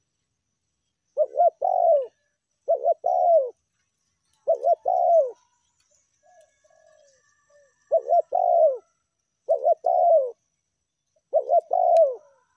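Spotted dove cooing: six phrases, each of two short notes followed by a longer coo that falls in pitch, with a longer pause midway filled by a few soft notes.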